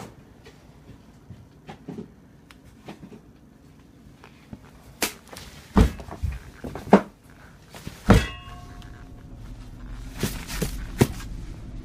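Scattered thumps and knocks of a person walking about indoors, with a few louder knocks in the second half. One of these, a little past the middle, rings briefly after it.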